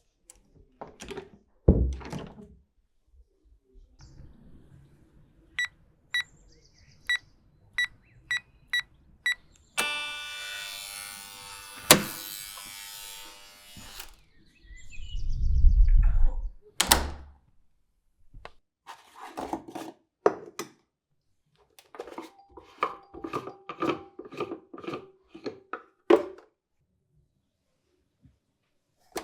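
A sequence of household sounds. First a door shuts with a couple of thuds. Then an apartment-block entry keypad beeps about seven times as a code is typed, and the intercom buzzer sounds for about four seconds, followed by a heavy thud and a click. Near the end comes irregular clattering and clicking from the handling of a Szarvasi electric coffee maker being set up.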